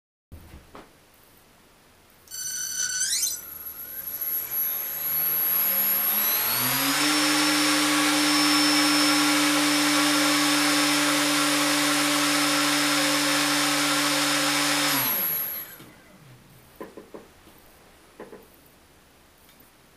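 Small brushless outrunner motor, a RaceStar BR1811 2000KV, driving an APC 4.7x4.7 propeller on a static thrust stand. It gives a short rising tone at start-up, winds up over a few seconds into a steady high whine, holds it for about eight seconds, then shuts off and spins down.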